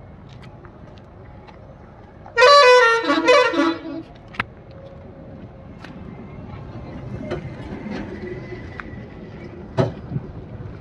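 A vehicle horn honks loudly about two seconds in, two quick blasts lasting about a second together, over a steady hum of street traffic.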